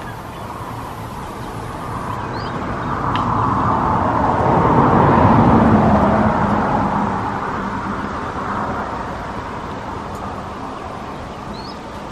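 A passing motor vehicle's engine and road noise swells to a peak about halfway through and then fades away, with a faint bird chirp or two.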